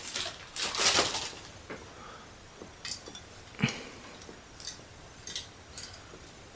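Parts of a diecast model crane and their packaging being handled: a short rustle near the start, then scattered light clicks and taps, the loudest about three and a half seconds in.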